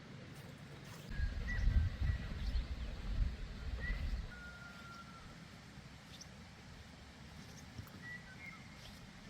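Birds chirping, with short whistled calls scattered through. A louder low rumble comes in about a second in and fades after about three seconds.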